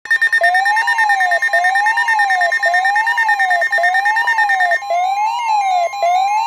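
Emergency alert tone announcing a severe thunderstorm warning: a siren-like tone sweeping up and down about once a second over steady high-pitched tones. The highest steady tone drops out about 5 seconds in.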